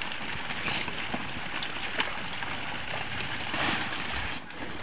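A mass of netted milkfish and tilapia thrashing and flapping in shallow water, a steady rain-like patter of splashes with scattered sharper slaps.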